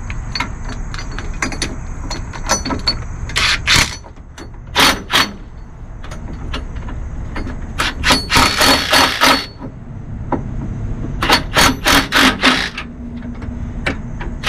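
Ryobi cordless impact driver hammering in four short bursts, the longer ones a second or more, running nuts up the long bolts of an RV's SumoSprings front bracket.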